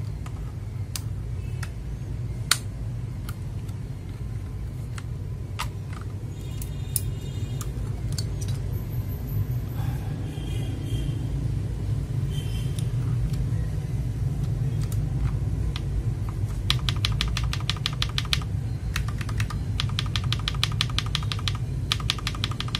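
Mechanical keyboard switches being pressed to test their sound: single key presses at first, then fast runs of typing in the second half, over a steady low hum. The keys are being compared for a deeper, more 'thocky' sound from newly swapped switches.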